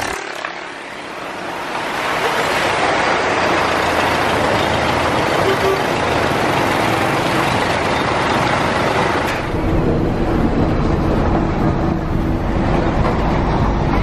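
Road traffic on a congested street: engines of trucks, a bus and motorbikes close by, under a steady rushing noise that thins out about two-thirds of the way through.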